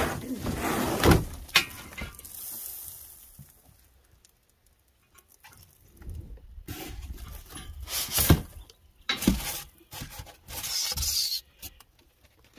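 Handling noises as a metal tractor quick hitch is pulled out of its cardboard box: cardboard scraping and rustling, plastic wrap crinkling, and several sharp knocks. The knocks come in the first two seconds and again in the second half, with a quiet gap between.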